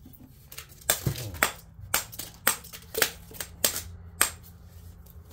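Sharp, irregular clicks and knocks, about a dozen over three seconds, of small hard parts being pulled loose and handled while a transformer is taken apart by hand, with a faint steady low hum underneath.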